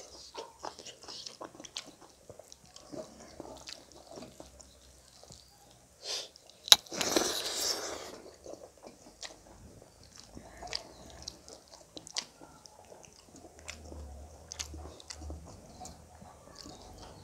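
A person eating rice and curry by hand: close chewing and mouth clicks, with fingers gathering rice on a metal plate. About seven seconds in comes a loud click followed by a second-long rush of noise.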